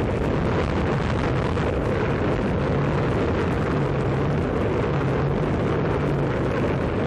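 Steady wind rush on the onboard microphone of a Maxi Swift FPV flying wing as it glides with its motor throttled back, with a faint low hum that comes and goes.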